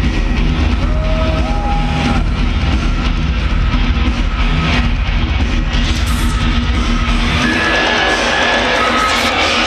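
Loud electronic dance music from a DJ set playing over a festival sound system, with strong, heavy bass.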